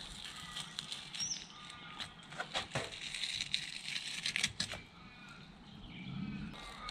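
Filleting knife cutting into a large samson fish along its back, with scattered crisp clicks and scraping as the blade works through skin and flesh.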